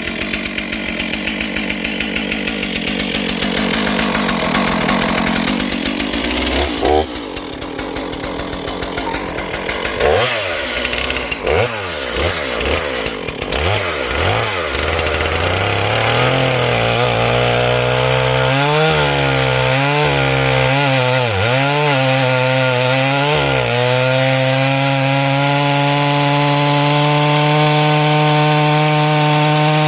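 Stihl MS 461 two-stroke chainsaw running, revved up and down in a series of quick throttle blips, then held steady at high revs near the end.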